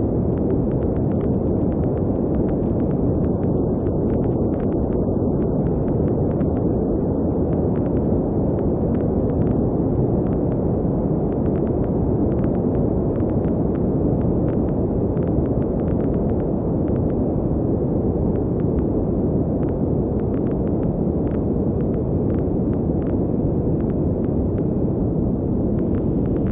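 Low, steady synthesized noise rumble from an Ableton Operator patch, run through Vinyl Distortion and a low-pass Auto Filter, with vinyl-style crackle clicks scattered over it that grow denser after about ten seconds as the crackle density is turned up.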